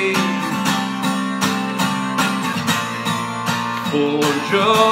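Acoustic guitar being strummed in a steady rhythm of chords, a couple of strokes a second, between sung lines.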